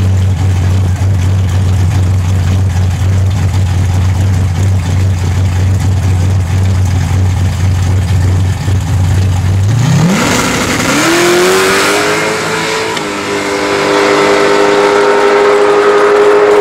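Drag racing cars' engines running steadily on the starting line, then revving sharply upward about ten seconds in as they launch and pull hard at full throttle down the strip. The pitch steps once a few seconds later, like a gear change, and then holds high and loud.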